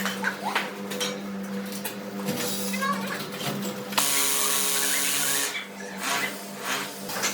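A power tool runs in one loud burst of about a second and a half midway, over a steady hum and scattered knocks of work.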